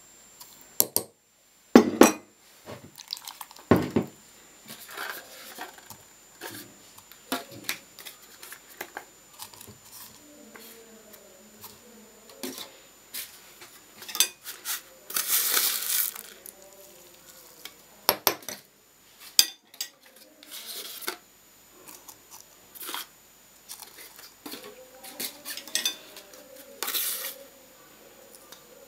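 Kitchenware clinking and knocking: a spoon against a glass jar and ceramic bowls, and small dishes set down on a table, as salt, lemon and spices go into a jar of peppers. The clinks come scattered throughout, with a longer rustling stretch about halfway through.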